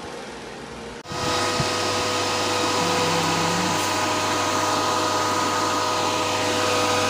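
Cryptocurrency mining machines running, their cooling fans giving a loud, steady whir with a high whine in it. It starts abruptly about a second in, after a quieter hum.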